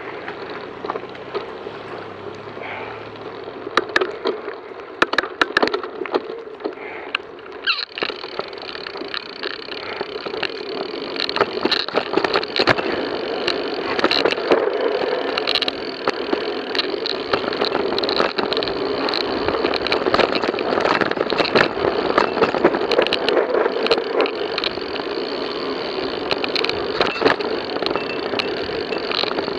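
Mountain bike ridden over a rough dirt singletrack, heard through the action camera carried on the ride: tyres rolling on dirt, with constant rattling and knocking from the bike over bumps, plus wind noise. It gets louder and busier about eight seconds in as the bike picks up speed on the descent.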